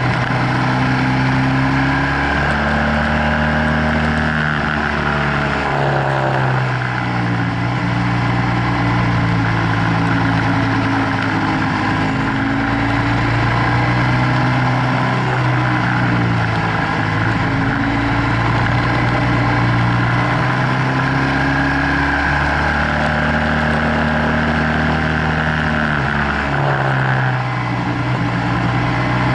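Onboard sound of a BMW F800GS's parallel-twin engine under way, its revs rising and falling again and again through the bends, over a steady rush of wind noise.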